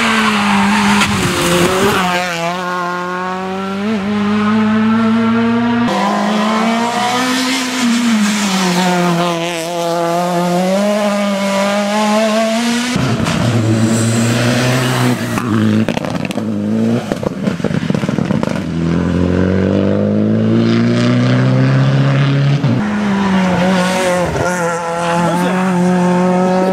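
Rally cars, a Renault Clio and a Citroën DS3 among them, driven hard through corners: the engines rev up and drop back with each gear change and lift as each car passes. Several passes are cut together, so the engine note changes abruptly a few times.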